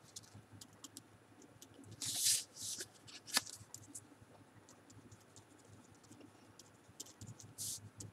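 Pen writing on a paper worksheet: short scratching strokes with light ticks of the tip on the page, a louder scratch about two seconds in and a sharp tick a little after three seconds.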